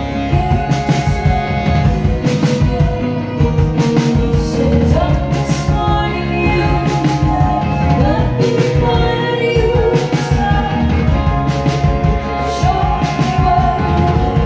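Live band playing a rock tune on drum kit, trumpet, saxophone and violin, with held pitched lines over a steady drum beat.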